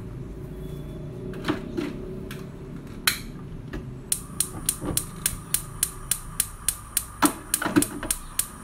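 Knife chopping vegetables on a cutting board: a few scattered knocks, then from about four seconds in an even run of sharp chops, a little over three a second.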